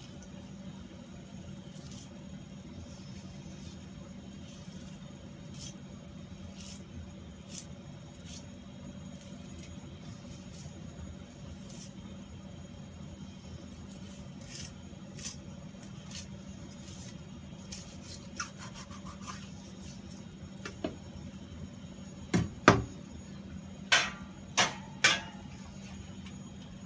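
Knife work on a bluefin tuna section on a wooden cutting board over a steady low hum: scattered light clicks, then a cluster of sharp knocks in the last few seconds.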